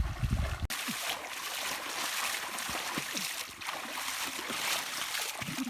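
Shallow canal water splashing and sloshing in a steady hiss. The sound changes abruptly less than a second in.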